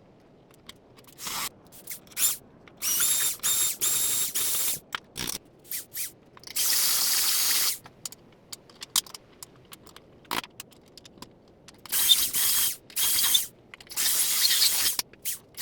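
Power drill run in short bursts of about half a second to a second and a half, its motor whining, with clicks and knocks of the tool and workpiece between bursts while drilling a knife blade for its handle.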